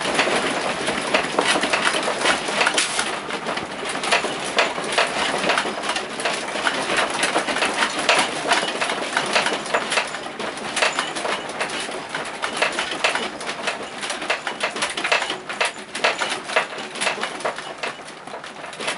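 A house and its contents rattling and creaking as an earthquake shakes it: a dense, irregular stream of small clicks and knocks, easing slightly near the end.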